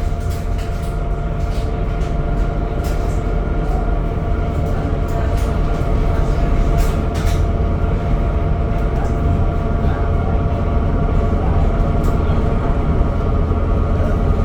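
Temsa Avenue LF 12 city bus running with its DAF engine, a steady low rumble under a constant whine of several tones. Scattered light clicks and rattles come through now and then.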